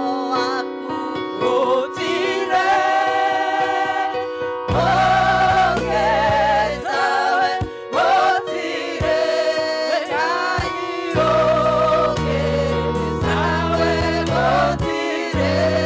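Choir singing a gospel song with instrumental accompaniment, a deep bass line moving from note to note underneath the voices.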